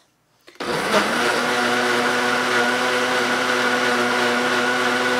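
Ninja Foodi Hot & Cold Blender motor starting just over half a second in and running steadily at one speed on pulse, blending a liquid mix of eggs, sugar and half-and-half.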